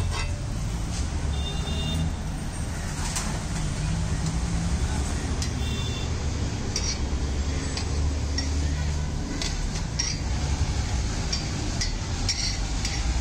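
A metal spatula clinking and scraping on a flat griddle: a dozen or so sharp scattered clinks as the egg dosa is cut, lifted off and the griddle scraped clean, over a steady low rumble.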